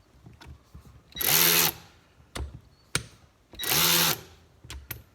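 Ryobi 18V One+ cordless 3/8-inch ratchet run twice in short trigger pulls of about half a second each, its motor whirring up and down with no socket or load on the drive. A few light clicks come between the runs.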